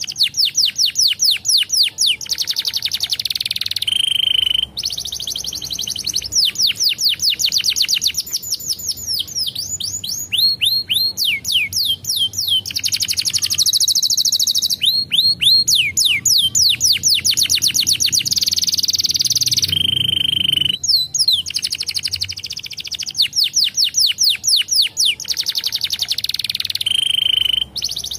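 A domestic canary singing loudly in long rolling trills of rapid, quickly repeated down-sweeping notes. The trills are broken now and then by a short held whistle and a brief pause between phrases.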